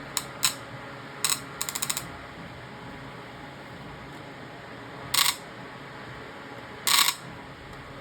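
Lasko Windstorm pedestal fan's tilt joint clicking and ratcheting as the running fan head is tilted: a few sharp clicks, a quick ratcheting run of about eight clicks, then two louder clacks, over the fan's steady whir.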